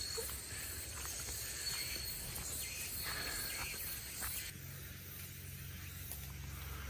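Faint outdoor ambience on a dirt hiking trail: a few soft footsteps and a thin, high, steady tone. About four and a half seconds in, this gives way to a low steady hum.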